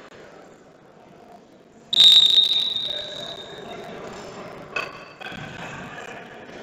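A referee's whistle gives one long, shrill blast about two seconds in, fading out over about two seconds. A sharp knock follows shortly after.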